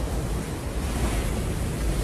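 Storm wind blowing hard and steadily, a rushing noise with a heavy low rumble.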